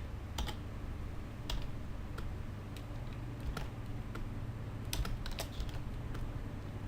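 Computer keyboard keys pressed in short, irregular clicks, over a steady low hum.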